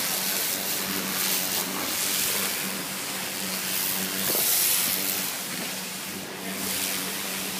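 Pressure washer jet spraying water onto a painted carved wooden statue: a steady high hiss of spray that swells and dips as the jet moves over the wood, loudest about halfway through, with a steady low hum underneath.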